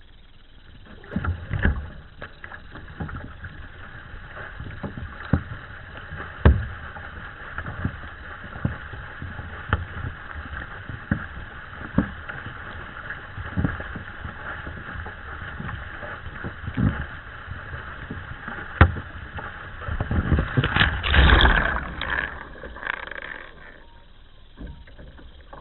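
K1 sprint kayak being paddled hard, heard from just above the waterline: a steady rush of water along the hull with a paddle-blade splash about once a second. Near the end a louder churning of water as the camera goes under, then a quieter, muffled sound.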